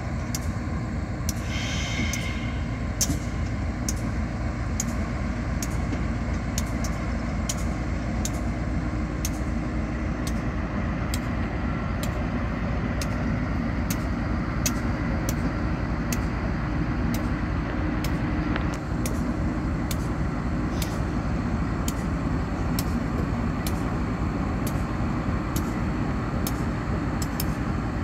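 Diesel locomotive engine running with a steady low rumble as the unit moves slowly past. A brief high squeal comes about two seconds in, and there are repeated sharp clicks.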